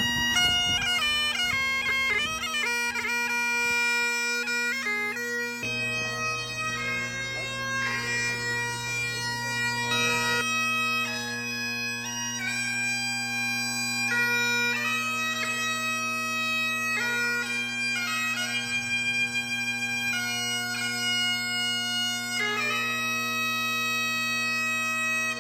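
Scottish bagpipes playing a tune: the chanter carries the melody over a steady drone, and a lower drone note joins about five seconds in.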